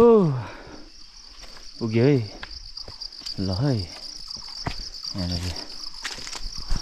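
Steady, high-pitched chirring of insects from the forest, with four brief vocal calls from people cutting across it, the first and loudest right at the start.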